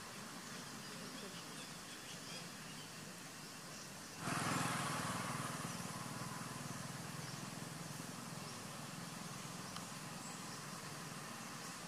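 Outdoor ambient noise with faint bird chirps. About four seconds in, a louder rushing noise starts abruptly and slowly fades away.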